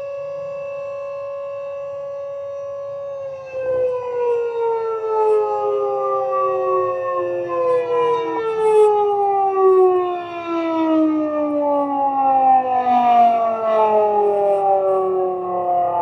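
Outdoor warning siren sound, a Thunderbolt 1000 and a Whelen 2810, holding a steady tone and then winding down in falling pitch. A short thump comes about three seconds in, where the wind-down begins and it gets louder. A second set of falling tones joins about seven and a half seconds in.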